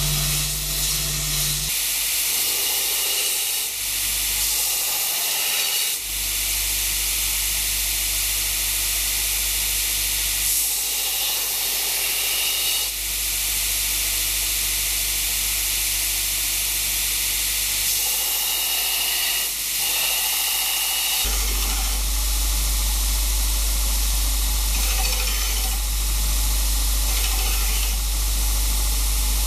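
Electric belt grinder running with a steel cleaver blade held against the abrasive belt, a steady hissing grind over the motor's hum, as the old blade is ground down. The sound changes abruptly several times.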